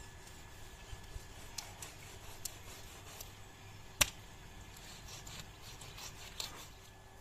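Large curved knife working on a wooden chopping block while cutting an eel: faint scrapes and light taps, with one sharp knock about four seconds in as a palm strikes the back of the blade and drives it into the block.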